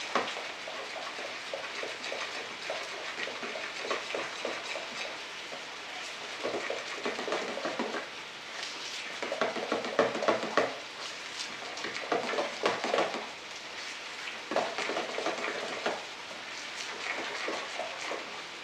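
A spoon stirring a thick sauce of ketchup, brown sugar, vinegar and mustard powder in a mixing bowl: scraping, sloshing strokes that come in bursts of quick strokes with short pauses between.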